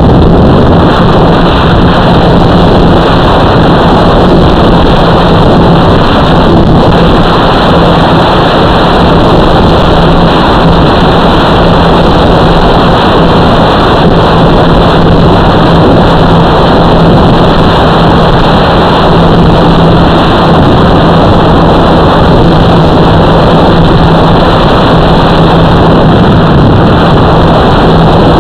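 Radio-controlled model's motor running steadily with heavy wind noise on its onboard FPV camera microphone: a loud, constant rush with a steady low hum.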